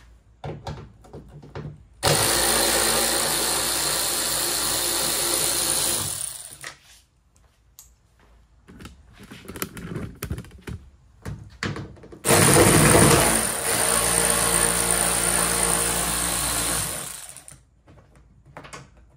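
Cordless electric ratchet with a T30 Torx bit running in two long runs of about four seconds each, backing out Torx screws. Short clicks and knocks of the tool and screws being handled come between the runs.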